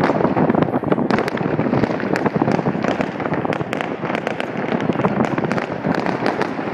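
Fireworks and firecrackers going off: a dense, unbroken crackling with many overlapping pops.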